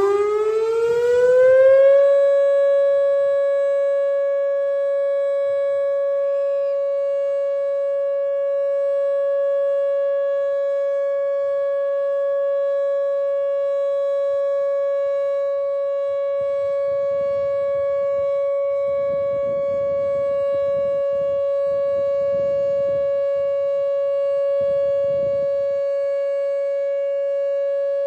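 Whelen WPS 2910 electronic outdoor warning siren sounding its alert signal during a test. It rises in pitch over about two seconds, then holds one steady, loud tone.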